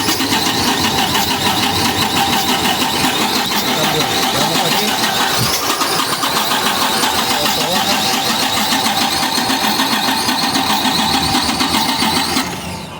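Dodge Ram 4000's 5.7 HEMI V8 being cranked over on the starter with the valve cover off, stopping just before the end. It has a cylinder 6 misfire (P0306): the exhaust rocker arm on that cylinder is not moving.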